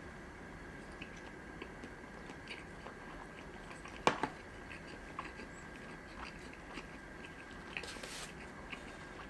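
Close-miked chewing and wet mouth sounds of someone eating sushi, with many small soft clicks. A single sharp click comes about four seconds in, and a short hiss near the end. A faint steady high hum sits underneath.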